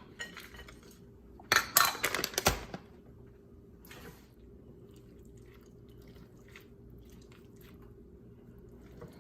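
Kitchen handling sounds from a bowl and spoon: a cluster of sharp clatters and scrapes about a second and a half in, another near four seconds, then faint scattered clicks.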